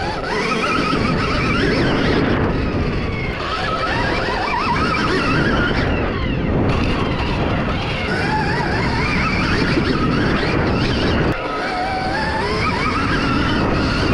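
Stark Varg electric dirt bike being ridden: a motor whine that rises and falls in pitch with the throttle, over steady wind and tyre noise.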